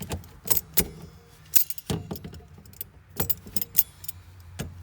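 Sharp clicks and light clattering of parts and fasteners being twisted into place by hand, about eight irregular taps.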